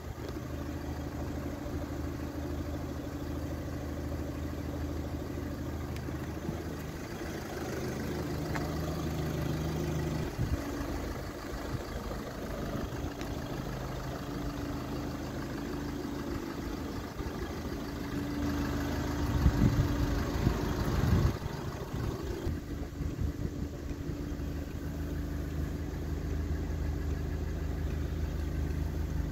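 Audi A3 1.6 TDI's four-cylinder diesel engine idling steadily. A louder rush of noise lasts about two seconds past the middle.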